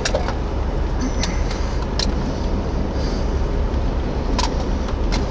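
Steady wind noise on the microphone: a low rumble with a hiss above it, broken by a few short sharp clicks.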